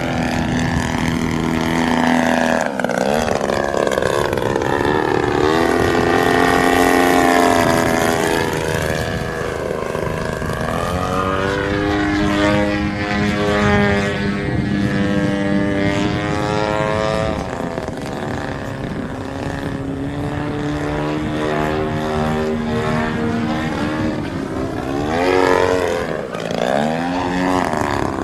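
Pilot-RC 103-inch Laser aerobatic model plane's GP-123 petrol engine and propeller in flight, its pitch rising and falling in long sweeps as the plane manoeuvres.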